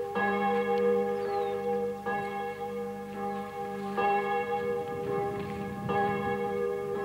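A bell tolling slowly, struck four times about two seconds apart, each stroke left ringing on into the next.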